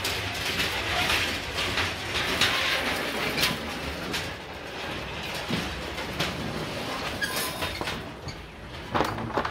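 A small hand-pushed flatcar's steel wheels rolling over light rail through a track switch, with a continuous rumble and several sharp clacks, the loudest near the end.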